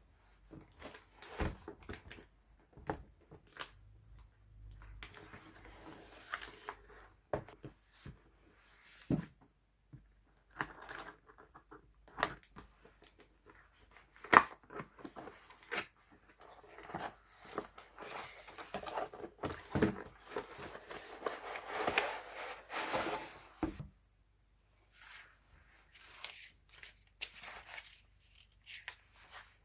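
Packaging being handled and torn open by hand: irregular rustling and tearing with scattered clicks and taps, busiest about two-thirds of the way through.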